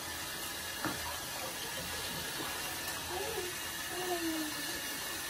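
Handheld shower head spraying water onto a wet Alaskan malamute's thick coat in a bathtub while it is rinsed, a steady hiss of running water.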